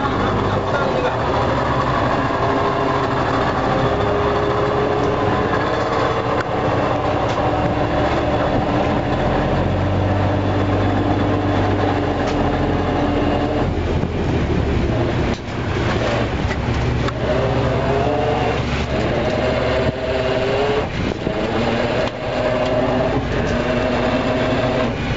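Fishing boat's engine running steadily, with tones above it that shift in pitch and scattered knocks and clanks in the second half.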